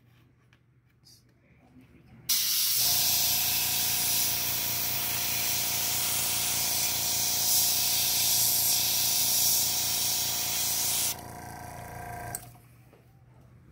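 Airbrush spraying paint in a steady hiss, starting about two seconds in and stopping sharply about eleven seconds in. Beneath it a small air compressor hums with a low pulse, starting just after the spray and cutting out about a second after it stops.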